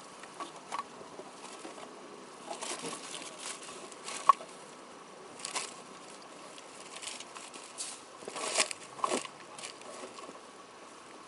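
Scattered rustling and clicking of objects being handled and moved about during a search, over a faint steady tone. One sharp click a little over four seconds in is the loudest sound, and a cluster of louder rustles comes near the end.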